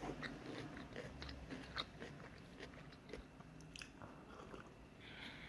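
Chewing a mouthful of udon noodles with tofu and stir-fried vegetables: faint, irregular wet mouth clicks.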